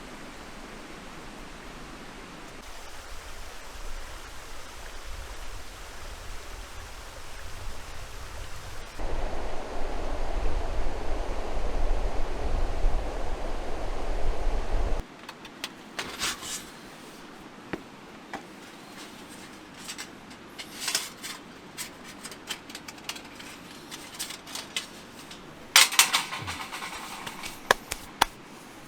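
Steady rushing of a mountain stream, louder with a deep rumble for several seconds in the middle, then cutting off abruptly about halfway to a quieter background with scattered rustles and clicks.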